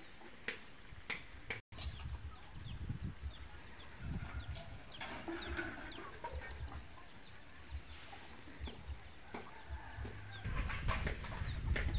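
Village chickens clucking and giving many short, high, falling chirps, over a low rumble that grows louder near the end. The sound cuts out for an instant just under two seconds in.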